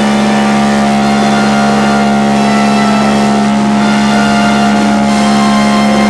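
Ship's horn sounding one long, unbroken blast, a steady chord of several tones.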